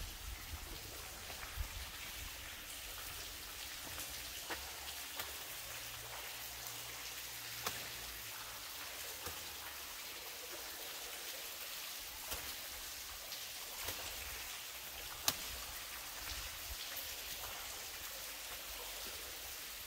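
Water falling in drops and spray: a steady hiss with scattered sharp drip hits, one louder hit about fifteen seconds in.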